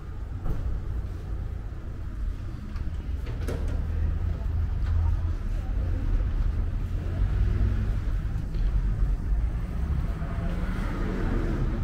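City street ambience: the low rumble of passing road traffic, growing louder from about four seconds in.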